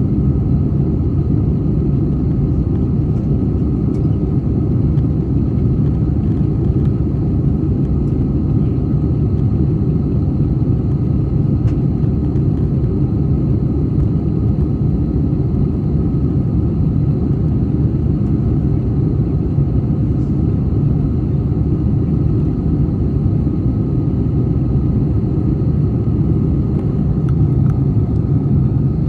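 Steady cabin noise of an Airbus A321-231 in its climb-out after takeoff: a loud, even low rumble of its IAE V2500 turbofan engines and the airflow past the fuselage, with faint steady whines above it.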